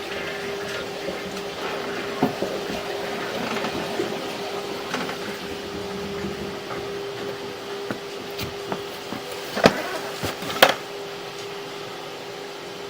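Water running from a toilet flush, rushing steadily and easing off near the end, under a steady hum, with a few sharp clicks about two-thirds of the way through.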